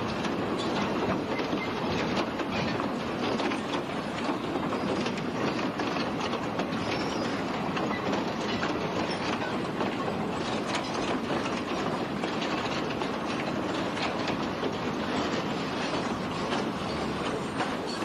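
Railway freight wagons rolling along the track, a steady rumble with many small clicks of the wheels over the rails.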